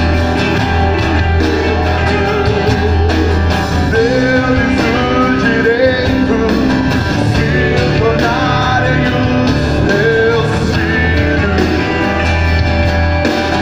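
Live worship band playing a Portuguese-language song: voices singing over acoustic guitar and full band backing, with a strong steady bass.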